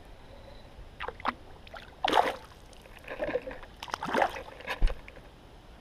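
Irregular splashes and sloshes beside a kayak as a small crappie is reeled in and lifted from the water, with a low knock on the hull near the end.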